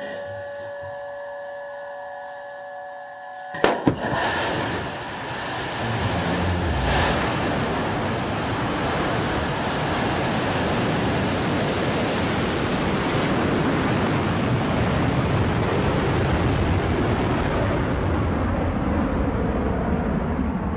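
A steady electrical hum, then the New Shepard rocket's BE-3 engine igniting with a sharp crack about four seconds in. Its loud, steady noise builds through liftoff, and the highest frequencies fade near the end as the rocket climbs away.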